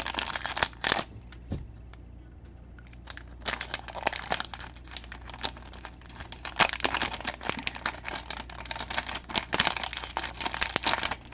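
Packaging crinkling and rustling in the hands as the next card is unwrapped: a couple of sharp clicks at first, then irregular crackling from about three seconds in.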